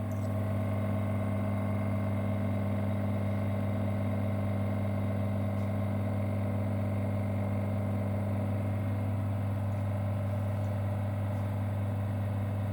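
Vacuum pump of a digital leak test apparatus running steadily, drawing vacuum on the test chamber toward its 500 mm set point. It makes an even, low hum.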